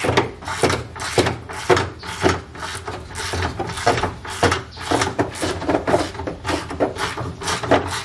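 Ratchet wrench cranking the Ford Transit's under-floor spare-tire winch, clicking and grinding in a steady rhythm of about two strokes a second as the spare tire is lowered.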